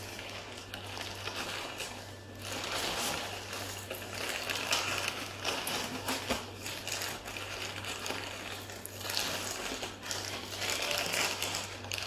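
African grey parrot crunching and picking at food held in its foot with its beak: a dense, irregular crackle of quick clicks that comes in louder spells from about two seconds in. A steady low hum runs underneath.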